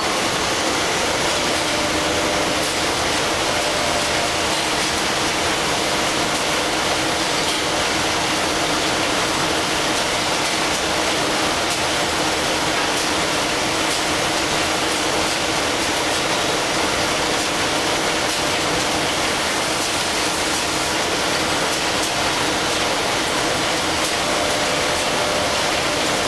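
Facial tissue production line machinery running: a steady, even machine noise with a faint constant hum and occasional light ticks.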